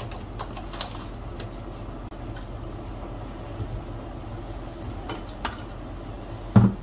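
Ground beef sizzling gently in oil in a small pan over a gas burner, over a steady low hum. A few light clicks come as sugar and soy sauce go in, and a loud, dull knock sounds near the end.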